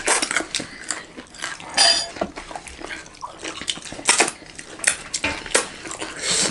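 Eating dal bhat by hand from metal plates: scattered short clicks and scrapes of fingers and rice against the plates, with sounds of chewing and licking fingers.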